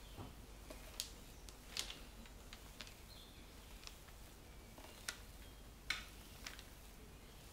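A spatula spreading sponge-cake batter over parchment paper on a baking tray: a few short, soft scrapes and paper crinkles over a faint hiss, the sharpest about six seconds in.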